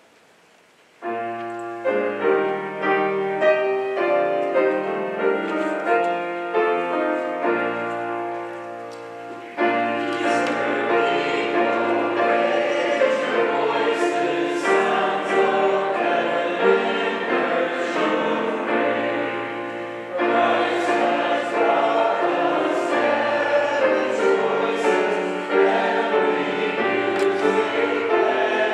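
Piano playing a hymn introduction, starting about a second in; after about nine seconds the congregation joins in singing the hymn with the piano.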